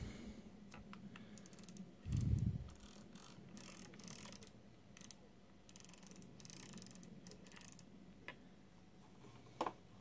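Clicking of the CNC pendant's rotary encoder dial being turned through its detents, in scattered rapid clusters, with a louder low thump about two seconds in.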